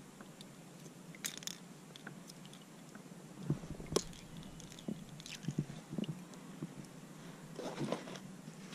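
Scattered small clicks, taps and rustles of unhooking a redfish: metal pliers working a lure free of its mouth while the fish hangs in a plastic lip grip.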